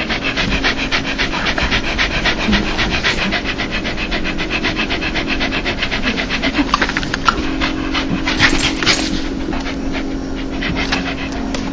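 A dog panting fast and steadily, about six or seven short breaths a second: the open-mouthed panting taken for a dog's happy 'laugh'. A steady low hum runs underneath.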